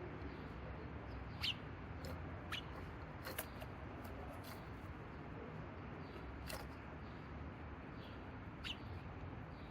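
Small garden birds giving a handful of brief, sharp chirps, some dropping in pitch, spaced irregularly over a steady low background rumble.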